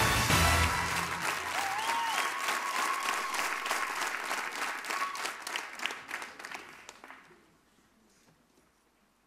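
Studio audience applauding, with the end of the show's music underneath for the first second or so; the clapping thins out and dies away about seven seconds in, leaving near quiet.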